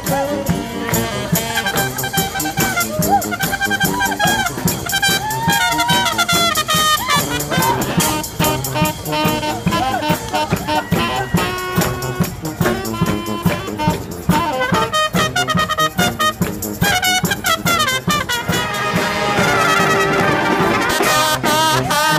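Street brass band playing live: trumpets and trombones over a steady drumbeat, growing fuller near the end.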